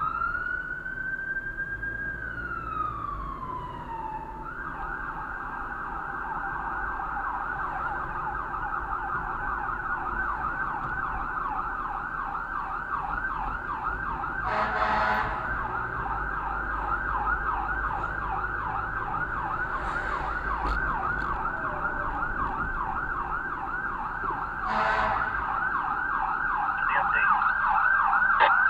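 Fire apparatus siren: a slow wail that rises and falls, then switches after about four seconds to a fast, steady yelp. Two short horn blasts sound about ten seconds apart, and the siren grows louder near the end.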